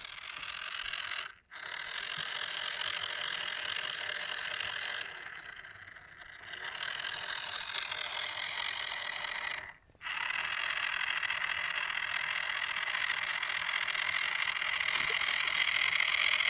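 Small electric motor and plastic gear train of a homemade RC paddle boat whirring steadily with a high whine. It cuts out briefly twice and fades lower for a moment in between.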